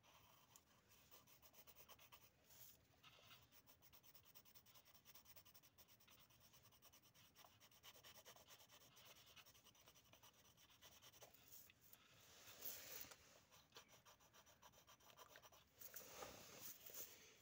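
Faint scratching of wooden pencils drawing on paper, many small strokes, a little louder about twelve seconds in and again near the end.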